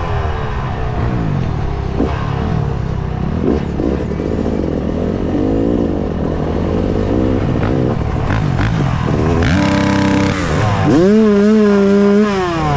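Dirt bike engine heard from the handlebars, the throttle rising and falling as the bike is ridden, with wind noise over it. Twice near the end the engine revs up and is held at a steady pitch for about a second before dropping off.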